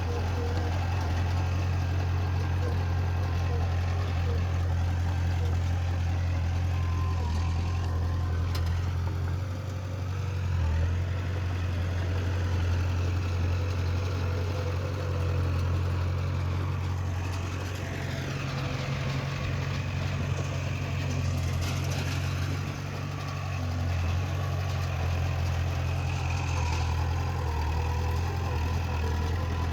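Heavy diesel engine of earthmoving machinery running steadily with a deep hum, its pitch rising and falling a few times in the second half.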